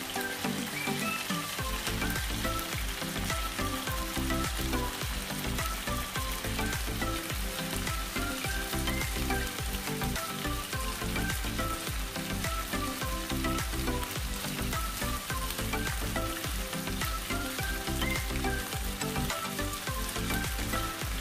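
Bite-size chicken breast pieces sizzling steadily as they fry in hot oil in a frying pan, being turned with tongs. Background music with a low beat plays along from about two seconds in.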